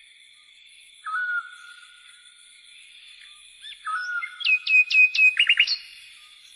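Clean birdsong with no outdoor background under it: a few separate whistled notes, then a busy run of quick downward-sliding whistles and chirps about four to five seconds in, over a faint steady high tone.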